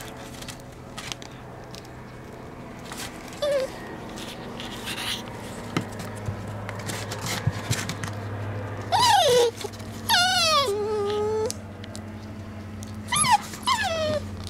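Norrbottenspets puppy whimpering: a few short whines that fall in pitch, a longer drawn-out whine about ten seconds in, and two more short ones near the end.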